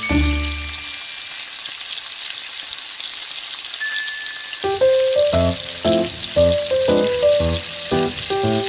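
Minced garlic sizzling in hot oil in a nonstick wok, a steady hiss. Background music of plucked notes plays at the start, stops about a second in, and comes back about halfway through.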